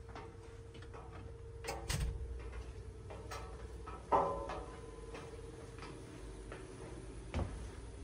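Steady machinery hum in a fireboat's engine room, with a few short knocks: one about two seconds in, a louder one just past halfway, and another near the end.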